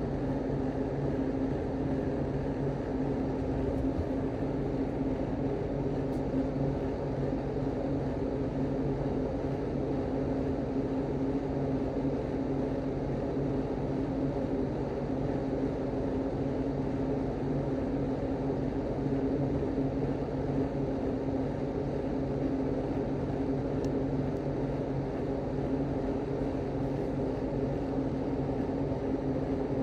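A steady low mechanical drone with several fixed tones, unchanging in pitch and loudness.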